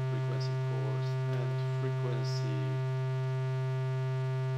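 Steady, unchanging low triangle-wave tone from the VCO of a 1V/Oct "The Centre" Eurorack module, droning at a fixed pitch with no modulation yet. A faint voice mutters in the first few seconds.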